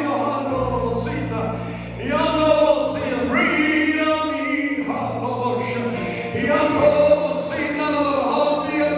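Gospel worship song: several voices singing phrases over held low accompanying notes.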